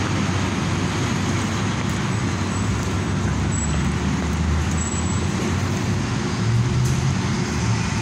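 Street traffic noise with the low, steady hum of a city transit bus engine running, swelling slightly about six and a half seconds in.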